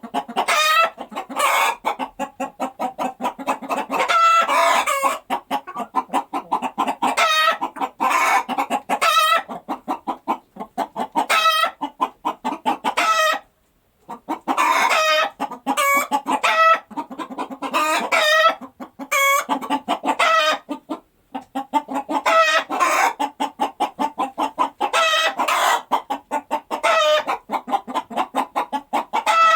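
Hen's egg song after laying: runs of quick clucks that keep rising into a drawn-out, higher 'ba-gawk' call, repeated over and over. The cackling breaks off twice, briefly, about halfway through.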